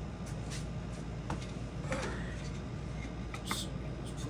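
A few light clicks and rustles from handling, as the person moves about and takes hold of the turntable, over a steady low hum.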